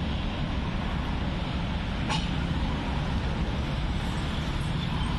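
Steady rumble of road traffic on an adjacent street, with a brief click about two seconds in.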